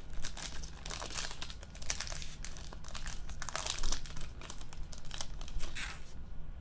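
Foil wrapper of a trading-card pack crinkling and crackling as it is torn open and handled. It stops about six seconds in.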